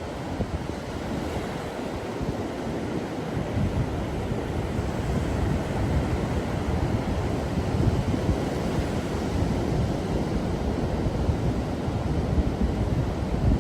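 Atlantic Ocean surf washing onto the beach, a steady rush of breaking waves, with wind buffeting the microphone in low rumbling gusts.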